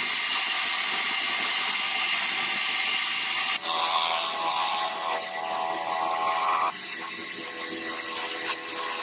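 Electric motor of an improvised lathe spinning a wooden knife handle, a steady power-tool whine, with sandpaper and then a chisel point held against the turning wood. The sound changes abruptly twice.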